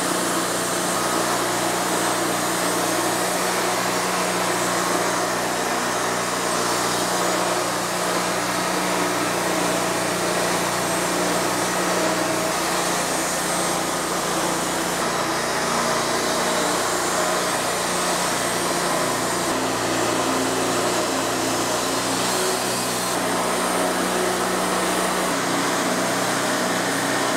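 Wood-Mizer LT40 hydraulic bandsaw mill running steadily under load, its band blade sawing through a monkey puzzle log.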